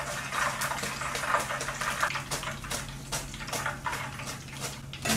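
Battered smelt deep-frying in hot oil: a steady sizzle with many small crackles, over a low steady hum.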